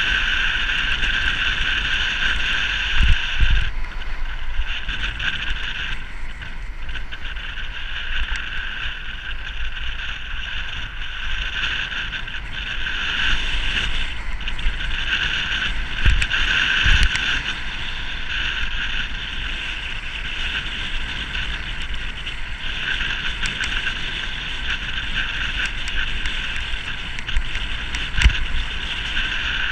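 Wind rushing over a bicycle-mounted camera's microphone on a fast road-bike descent, with a steady high hiss from the bike rolling over tarmac. A few low thumps from bumps in the road come through, about three seconds in, twice around the middle and once near the end.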